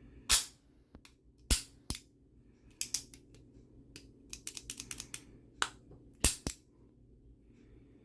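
Sharp metallic clicks and snaps of a Star Model S .380 ACP pistol's action being worked by hand in a function check after reassembly. The clicks come one by one with pauses, with a quick run of lighter clicks in the middle.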